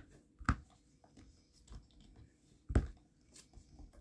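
Cast resin dominoes being handled as they come out of their mold: two sharp knocks, about half a second and nearly three seconds in, with faint small clicks and rustling between.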